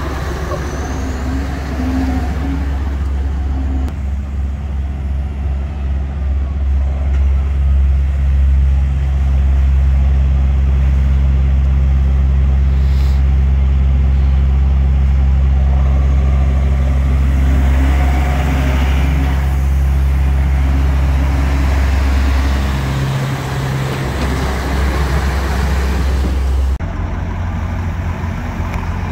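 Diesel engines of semi-trucks running at low speed, a deep steady rumble, as tractor-trailers pull out through a depot gate one after another.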